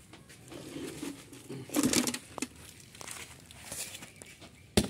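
An old rubber tyre on a steel wheel being dragged and lifted upright on dry, gritty ground: irregular scraping and rustling, a louder scuff about two seconds in, and a sharp knock near the end.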